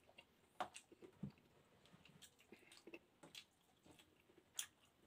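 Faint chewing of a mouthful of rice and meat, a few soft, brief smacks and clicks spread through otherwise near silence.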